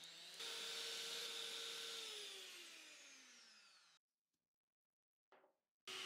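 Electric hand mixer with twin wire beaters whipping egg whites into meringue in a glass bowl. The motor steps up in speed just after starting, then winds down with falling pitch and stops about four seconds in. It starts again at a steady speed near the end.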